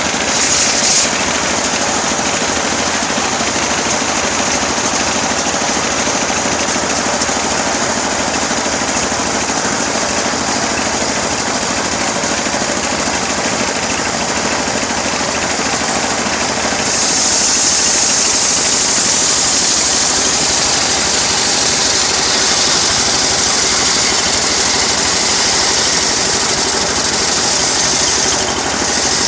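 Engine-driven saw on a homemade sawmill running steadily while cutting teak. A high hiss drops out just after the start and comes back a little past halfway, slightly louder.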